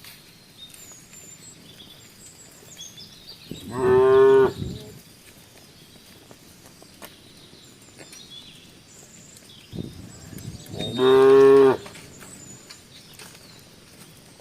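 A cow mooing twice, two calls of about a second each, some seven seconds apart.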